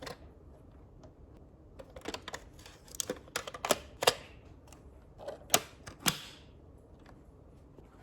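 A scattered run of light, sharp clicks and taps, irregular and close together, between about two and six seconds in.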